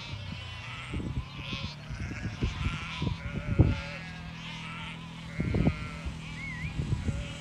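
A flock of sheep bleating, many calls overlapping. Short low rumbles of wind buffeting the microphone come and go, the strongest about three and a half seconds in.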